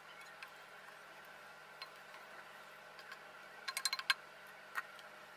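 Wooden spoon tapping and scraping against a cooking pot and a steel plate while curry is served: a few faint light clicks, with a quick run of taps a little before four seconds in and one more shortly after.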